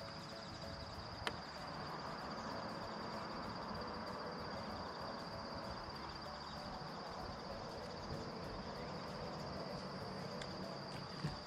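Quiet outdoor ambience: a steady, high, thin insect-like drone over a faint hiss, with a sharp click about a second in and another near the end.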